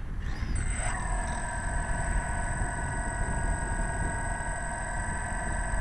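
Radio-controlled model car sitting still with its drive powered up, giving a steady high whine of several tones that starts about a second in, over a low rumble.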